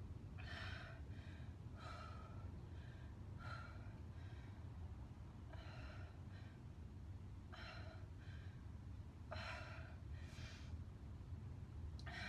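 A woman's heavy breathing while she recovers from a hard interval of push-ups and mountain climbers: about seven breaths out, one every second or two, over a low steady hum.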